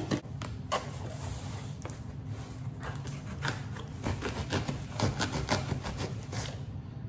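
Pair of scissors used as a box cutter, slicing and scraping along the taped seam of a cardboard box: irregular snips, scrapes and rustles of tape and cardboard, over a low steady hum.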